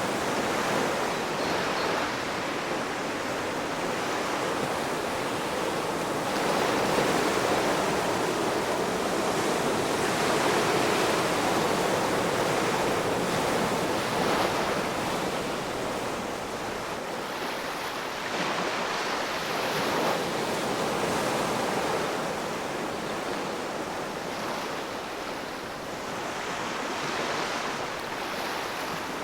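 Ocean waves washing onto a shore, a continuous surf hiss that swells and eases every few seconds.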